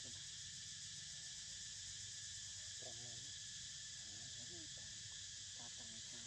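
Steady high-pitched chorus of insects in the surrounding forest, with a few faint, short voices or calls now and then.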